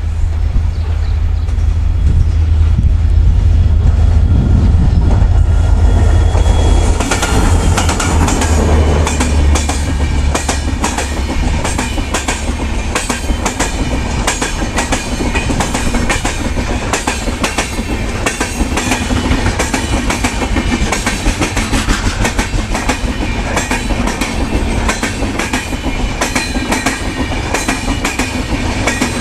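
WDP4D diesel locomotive with its EMD two-stroke engine passing with a heavy low rumble, followed about seven seconds in by the coaches of an express train going by with a steady clickety-clack of wheels over rail joints.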